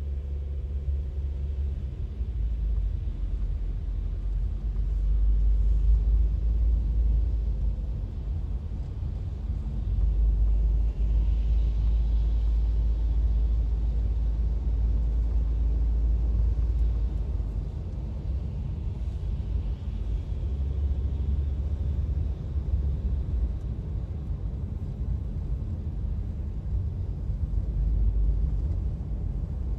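Low, steady rumble of a car's engine and tyres on the road, heard from inside the cabin while driving.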